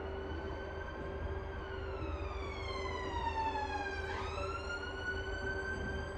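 A pitched tone with overtones slides slowly downward, then swoops quickly back up about four seconds in and levels off, over a steady lower hum and a low rumble.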